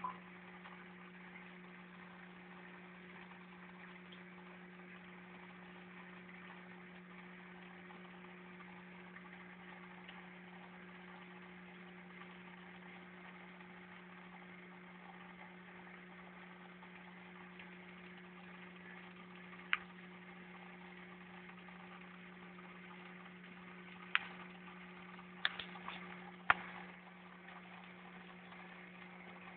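Steady low hum of a small electric motor, with a few single sharp clicks about twenty seconds in and near the end.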